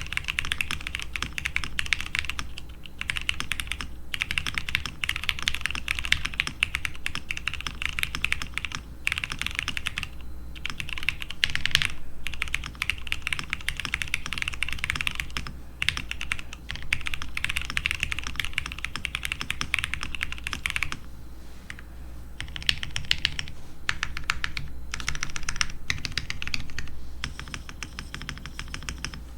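Fast, continuous typing on a Transition Lite TKL mechanical keyboard, a steady stream of key clacks broken by brief pauses every few seconds.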